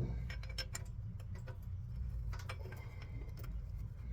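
Irregular small metal clicks and taps as radiator fittings are handled and fitted into a new radiator, the loudest click right at the start, over a steady low hum.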